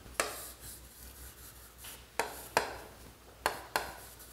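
Chalk drawing on a chalkboard: five sharp strokes, each starting with a tap of the chalk on the board and trailing off in a short scrape. The strokes come about a fifth of a second in, then in a cluster of four in the second half.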